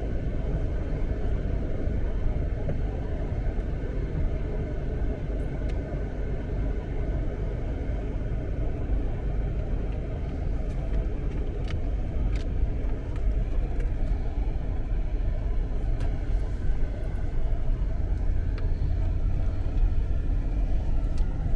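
Vehicle running with a steady low rumble of engine and road noise.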